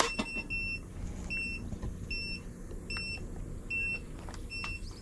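Buzzer in a 5-inch FPV quadcopter giving short high-pitched beeps about once a second, the warning it sounds when the flight battery is running out.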